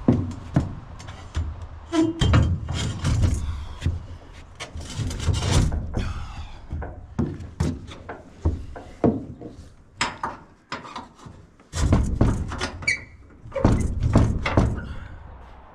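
Irregular clunks, knocks and scraping as a heavy steel Warn M12000 winch is shifted, tipped and handled on a wooden trailer deck while its replacement motor is fitted.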